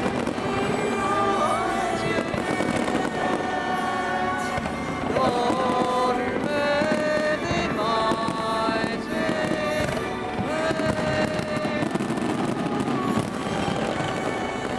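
Fireworks crackling and banging over loud music with long held notes, played to accompany the display.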